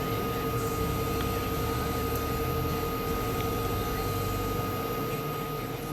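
Steady road and engine rumble inside a police patrol car's cabin, with a constant electrical hum.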